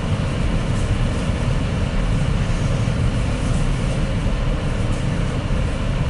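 Steady low noise inside a moving four-wheel-drive vehicle's cabin: engine and tyres running on a snow-covered road.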